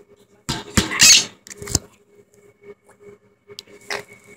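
Quaker parrot giving a few short, harsh squawks about a second in, followed by a few faint clicks.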